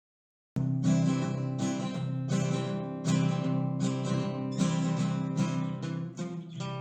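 Acoustic guitar strumming chords in a steady rhythm, cutting in sharply after about half a second of silence.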